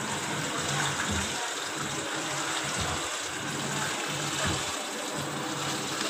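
Water gushing steadily into the drum of an LG Smart Inverter 8 kg washing machine as it fills. It is flowing at full rate now that the clogged inlet filter has been cleaned.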